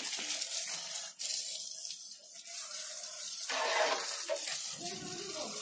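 Water spraying from a hose onto a motorcycle being washed, a steady hiss that swells louder for about half a second around three and a half seconds in.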